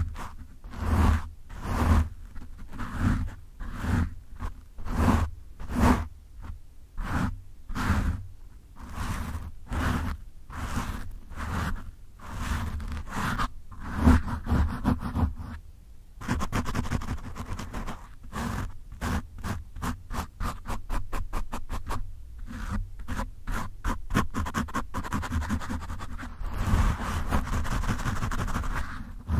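Fingertips scratching a foam microphone windscreen right on the mic, a rough close-up scratching. It comes in separate strokes about two a second, then after a short pause around the middle turns quicker and denser.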